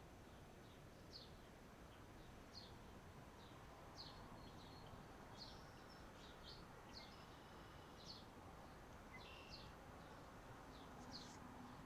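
Faint outdoor background hiss with a small bird chirping, short high chirps repeating irregularly about once a second.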